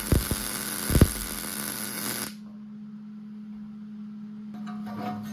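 Electric welding arc crackling with sharp pops, cutting off suddenly a little over two seconds in. A steady electrical hum continues underneath, with a few faint clicks near the end.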